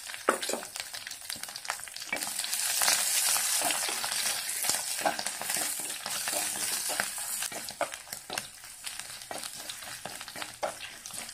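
Ginger, garlic and curry leaves frying in hot coconut oil in an earthen clay pot (manchatti), sizzling while a spatula stirs them and scrapes and taps against the pot. The sizzle is loudest a few seconds in, then eases as the ginger and garlic start to brown.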